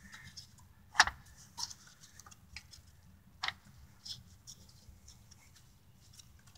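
Scattered light plastic clicks and knocks as a cooling fan shroud is worked onto a Mazda 3 radiator, its tabs sliding into their slots. The sharpest click comes about a second in, another about three and a half seconds in.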